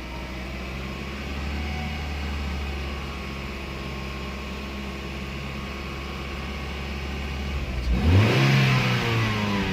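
1994 Ford Mondeo Mk1 1.6 four-cylinder petrol engine idling steadily, then revved up briefly about eight seconds in and dropping back. The engine is running rough at idle, which the owner puts down to a faulty idle air control valve or MAF sensor.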